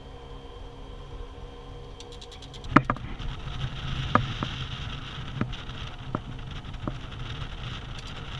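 Golf cart driving along a paved road: its motor gives a steady low hum, with a higher hiss joining about three seconds in and several sharp knocks and rattles from the cart over the next few seconds.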